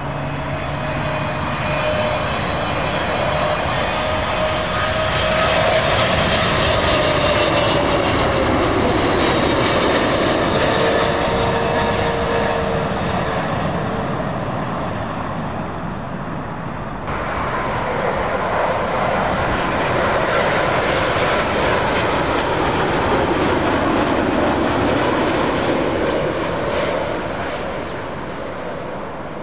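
Two widebody jets passing low overhead on final approach. A Boeing 777-300ER's GE90 engines swell to a peak and fade with their whine falling in pitch as it passes; after an abrupt cut about two-thirds through, a Boeing 787-9 Dreamliner's engines swell and fade in turn.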